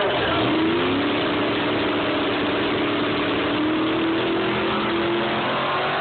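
Drag-racing car launching off the starting line and accelerating hard down the strip. Its engine note climbs quickly in the first second, then holds and slowly rises as the car pulls away.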